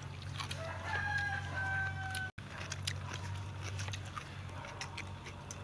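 A rooster crowing once, a long held call that falls slightly in pitch, over a steady low hum and scattered light clicks.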